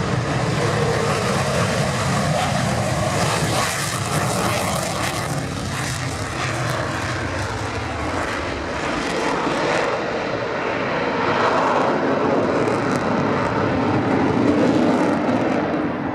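Eurofighter Typhoon's twin EJ200 turbofans in afterburner through the takeoff roll and climb-out: a loud, steady jet roar with a crackling edge a few seconds in.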